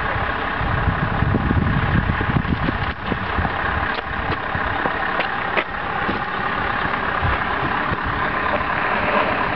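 A Scania 164L 580's V8 diesel engine runs as the truck and its loaded trailer pull away from standstill, with a few light clicks near the middle.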